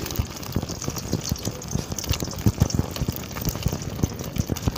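Beaten egg sizzling in hot oil in a kadai, with a steady crackle and many short knocks and ticks from a metal spatula working the egg against the pan.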